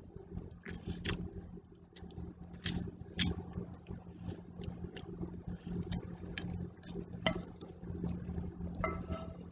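A fork clinking and scraping against a dinner plate while someone eats, in scattered sharp clicks, the loudest a little under three seconds in. A steady low hum runs underneath.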